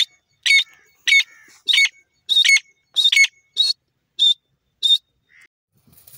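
Francolin (teetar) calling in a repeated series of shrill, clipped notes, about one every 0.6 seconds, the last few shorter. The calls stop about five seconds in, and a soft rustle follows near the end.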